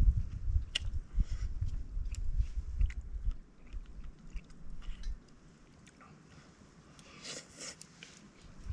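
A person chewing and eating food close to the microphone, with small crunches and mouth clicks. A heavy low rumble runs under the first three seconds and then stops.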